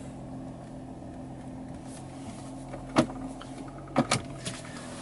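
Steady low hum of a 2015 Audi Q7's 3.0-litre V6 turbodiesel running, heard from inside the cabin, with a few sharp clicks about three and four seconds in.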